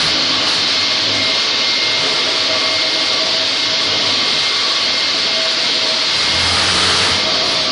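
Linax K-30ENV concrete floor grinder running steadily as its grinding head works across a concrete floor, together with its hose-connected dust extractor. A thin high whine over the noise fades about six seconds in.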